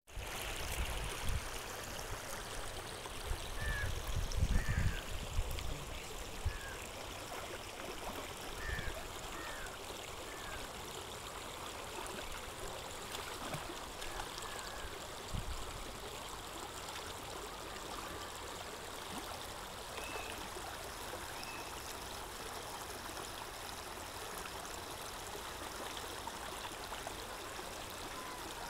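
Shallow rocky river flowing, a steady rush of water over stones. There are a few low bumps in the first five seconds and some short high chirps scattered through it.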